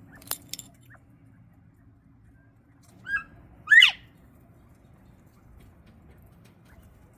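Bobwhite quail calling: a short note about three seconds in, then a louder call that sweeps up and falls away. Two sharp clicks near the start.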